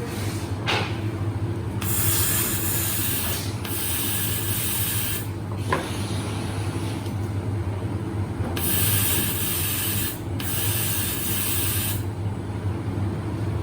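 Battery-welding machinery running with a steady low hum, overlaid by four hissing bursts of about a second and a half each, in two pairs, and a couple of brief sharp clicks.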